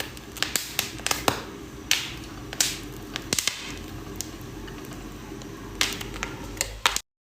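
Popcorn kernels popping: irregular sharp pops, several a second, over a low steady hum. The sound cuts off suddenly near the end.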